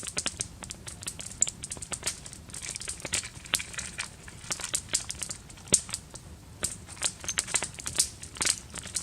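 Wood campfire crackling, with irregular sharp pops and snaps at uneven intervals.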